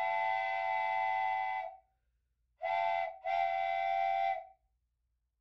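Steam train whistle sounding a chord in three blasts: a long one, a short one, then another long one, each sagging slightly in pitch as it dies away.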